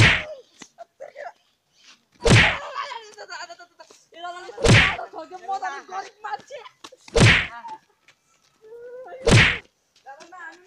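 Five loud stick whacks, about two and a half seconds apart, with voices crying out between them.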